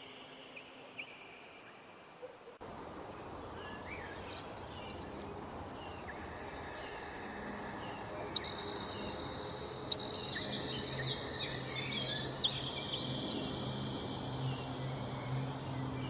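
Several small birds chirping and twittering over a steady outdoor background hiss. The chirping starts abruptly a few seconds in and grows busier toward the end.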